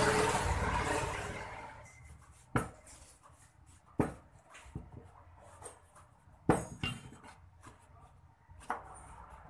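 A loud rushing noise dies away over the first two seconds. Then come several sharp knocks, a few seconds apart, as short rings of PVC pipe are set down and stacked on top of one another on a workbench.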